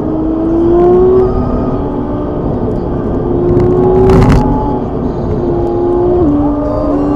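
Car engine heard from inside while driving: its note climbs slowly under acceleration and steps down near the end as it changes gear. A car passes the other way about four seconds in, with a brief loud rush.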